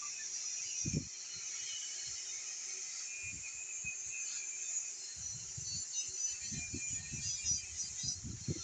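Outdoor ambience: a steady high-pitched hiss or buzz throughout, with short, irregular low rumbles about a second in and then many through the second half.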